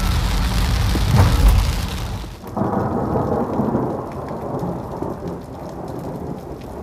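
Heavy rain with a deep rumble that swells about a second in. The sound cuts off abruptly about two and a half seconds in, giving way to a softer steady rain hiss with scattered raindrop taps.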